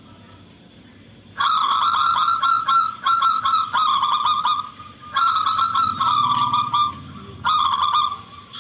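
Zebra dove (perkutut) singing a shrill song in three phrases of rapid, repeated high cooing notes. The first phrase starts about a second and a half in, and the shortest, last one ends near the end.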